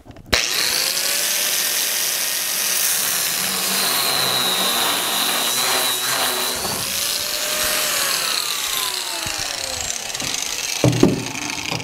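Angle grinder starting up and grinding out spot welds in steel body metal on a Bronco cowl, with a steady high whine that sags in the middle. It spins down about ten seconds in, and a few knocks follow.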